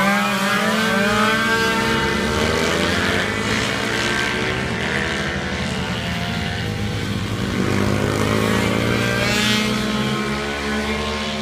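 A pack of racing scooters rounding a corner, several small engines at high revs at once. Their overlapping notes fall and rise in pitch as the riders ease off into the bend and accelerate out of it.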